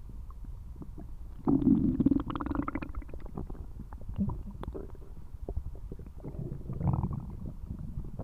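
Human stomach growling and gurgling: a loud drawn-out growl starts about a second and a half in and lasts over a second, and a second, softer growl comes near the end, over continuous low bubbling.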